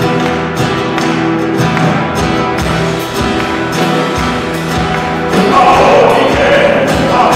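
Live band music: acoustic guitars strumming over a steady drum beat, getting louder and fuller about five seconds in.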